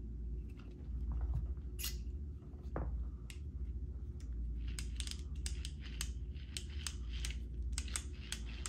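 Small clicks and taps of a hex driver and the plastic parts of an Axial RBX10 Ryft RC truck's two-speed gearbox being handled during reassembly. The clicks are sparse at first and come thicker in the second half, over a steady low hum.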